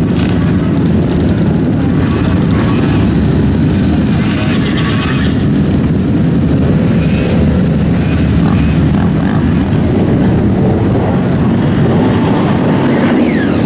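A large group of motorcycles, sport bikes and scooters, riding together in a pack, their engines running in a steady mass of noise.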